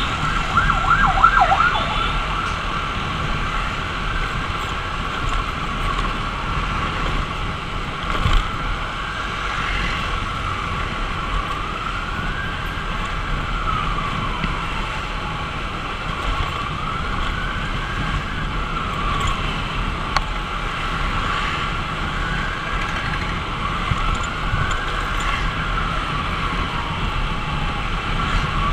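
Ambulance siren in a slow wail, rising and falling every few seconds, with a short burst of rapid yelp just after the start. Steady wind and road noise from the moving motorcycle lies underneath.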